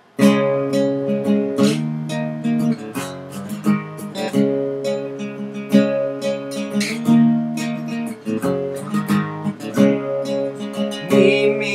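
Acoustic guitar playing a song's intro, picked chords ringing with a steady run of plucked notes. A singing voice comes in near the end.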